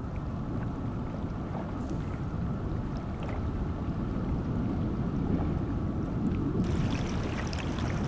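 River current heard underwater as a muffled, steady low rumble; near the end, the brighter hiss of water running over stones at the surface comes in suddenly.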